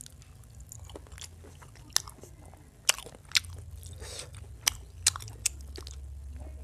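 A man chewing a mouthful of chicken curry and rice: wet chewing with about five sharp clicks and smacks, and a short squelch about four seconds in as his fingers work the curried chicken on the plate.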